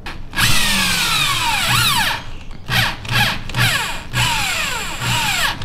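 Power drill driving countersink screws into the boat's deck framing. One run of about two seconds is followed by four shorter bursts, and each time the motor's whine falls in pitch as it slows under load.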